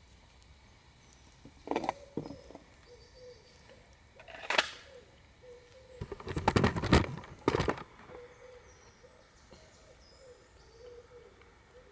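Several short bursts of close crackling and rustling, the loudest a cluster about six to seven seconds in, with faint bird calls in between.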